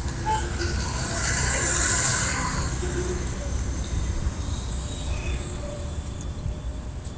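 Live road traffic: a constant low rumble, with one vehicle passing close, its hissing tyre and engine noise swelling about a second in, peaking around two seconds and fading away.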